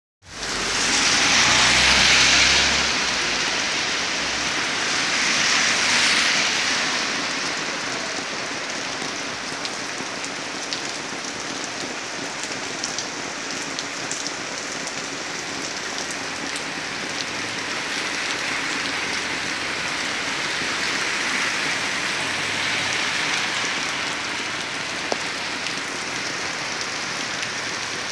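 Heavy rain pouring onto a wet asphalt street and sidewalk: a steady hiss of falling water, louder over the first several seconds, with a few small drop ticks.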